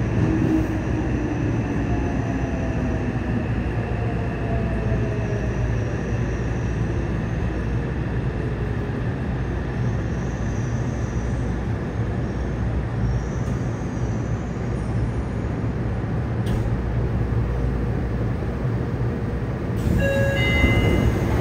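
Running noise inside a Yokohama Municipal Subway 3000N car, a steady low rumble of wheels on rail. Over the first few seconds the whine of its Mitsubishi IGBT-VVVF inverter and traction motors falls in pitch as the train slows for the station. Near the end, several higher steady tones come in and the noise gets a little louder.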